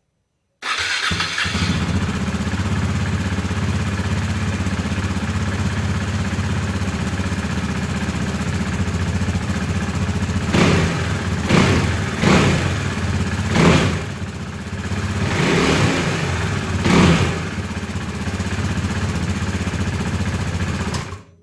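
Husqvarna Svartpilen 401's single-cylinder four-stroke engine, on its stock silencer, started up, idling, then blipped with the throttle about six times before being switched off near the end.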